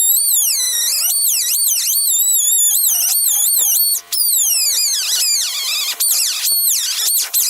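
A hand tool squealing against a piece of horn as it is shaped. The pitch slides up and down with each stroke, with a brief break about four seconds in.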